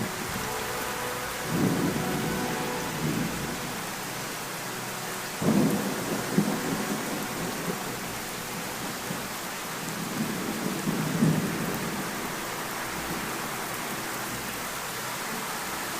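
Heavy summer rain pouring down steadily, with thunder rumbling three times: about a second and a half in, about five and a half seconds in, and about ten seconds in.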